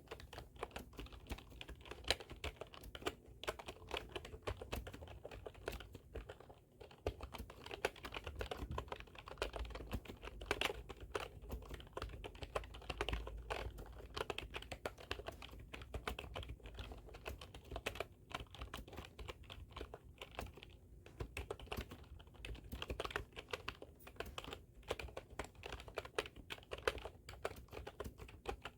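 Computer keyboard being typed on continuously, a fast, irregular stream of key clicks with a few brief pauses.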